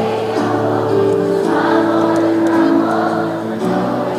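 A large group of voices singing a song together in chorus, holding long notes that change pitch step by step.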